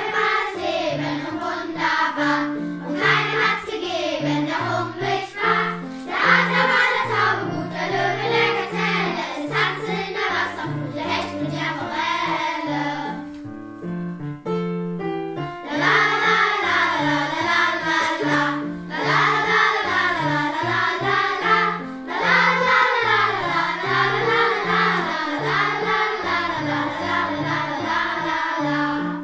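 A choir of children's voices singing a German song over an instrumental accompaniment with a steady bass line; the singing breaks off for a couple of seconds about halfway, then resumes.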